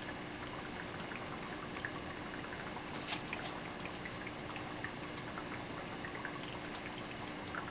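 Faint steady sound of running aquarium water, with a low steady hum. Scattered small clicks come from something being handled, the clearest about three seconds in.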